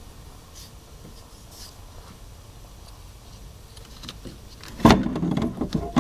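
Faint handling noise, then, about five seconds in, loud clattering and scraping as a metal 8-track tape transport is pulled out of a wooden console stereo cabinet.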